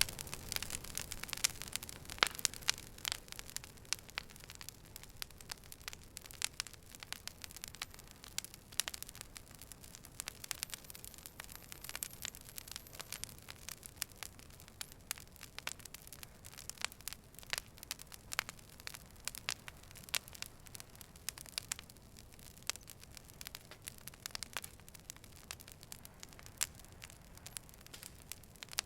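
Fire burning with frequent irregular crackles and pops over a low, steady hiss.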